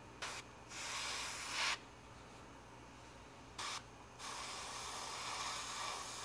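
Gravity-feed airbrush spraying paint: an air-and-paint hiss in four bursts that start and stop sharply as the trigger is worked, two short puffs and two longer passes, the last about two seconds long near the end.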